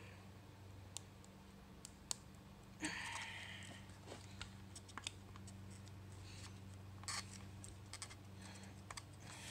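Light, irregular clicks and scrapes of a screwdriver tip working against a clip-on wheel weight and a steel wheel rim as the old, rusted weight is pried off, with a short scrape about three seconds in. A steady low hum runs underneath.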